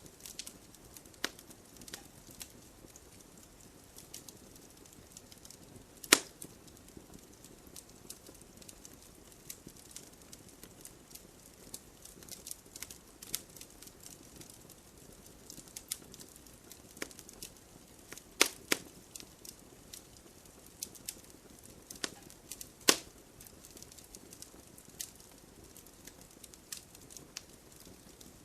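Wood burning in a campfire, crackling with irregular sharp pops over a soft steady hiss; a few louder snaps stand out.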